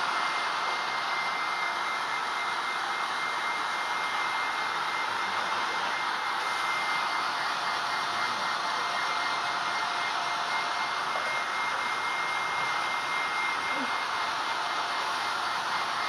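Pet blower dryer running steadily, blasting air through its hose onto a wet dog's coat: an even rush of air with a steady whine.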